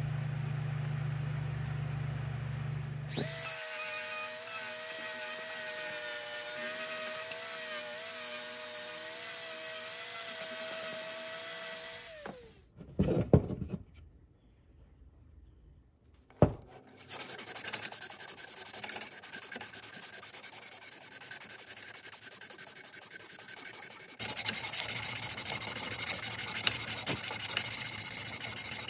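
Woodworking on a wooden handle in several passes. First a small power tool runs with a steady whine for several seconds. After a short lull with a couple of knocks, the wood is abraded by hand, ending with a sanding strip pulled back and forth across the handle, loudest near the end.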